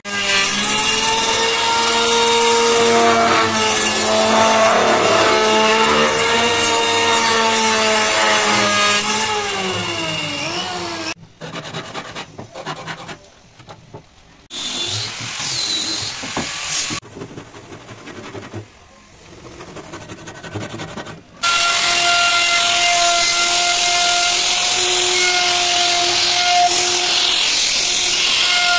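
A power tool runs for about ten seconds, its pitch wavering as it works the wood, then winds down. Scattered, quieter noises follow. About two-thirds of the way through, an electric plunge router starts and runs steadily.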